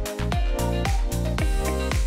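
Background music with a steady beat: a low bass and sustained chords under evenly spaced drum hits about twice a second.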